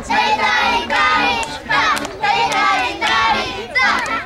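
A group of children singing together in unison, in short regular phrases of about a second each.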